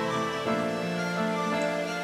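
Soft, gentle background music played on instruments, with notes changing about every half second.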